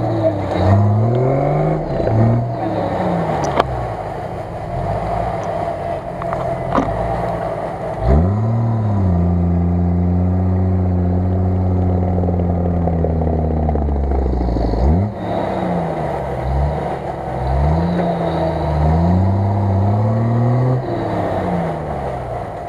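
Off-road SUV's engine revving hard as it crawls up a muddy slope, the revs rising and falling again and again. About eight seconds in it holds high revs for several seconds, then drops sharply and goes back to short rises and falls.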